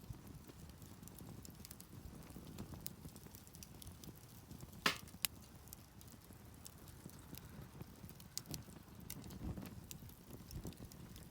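Wood campfire crackling, with scattered small snaps and two louder pops about five seconds in.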